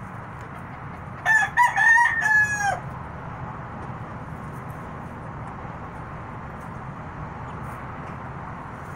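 A rooster crowing once, a little over a second in. The crow lasts about a second and a half: a few short broken notes, then a long held note that falls away at the end. A steady low hum runs underneath.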